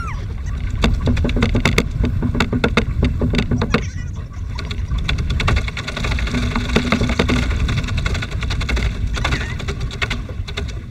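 Wind rumbling on the microphone at the bow of a plastic pedal boat, with water lapping against the hull and many sharp clicks and knocks.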